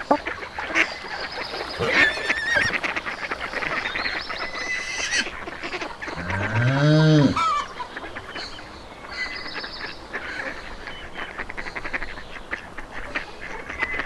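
Geese honking, a string of short calls, with one long, louder call that rises and falls about six to seven seconds in.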